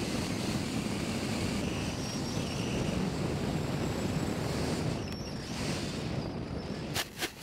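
Wind rushing past the GoPro microphone on a Skywalker flying wing in a fast, low pass over a field, a steady roar of air noise. A few sharp knocks come near the end.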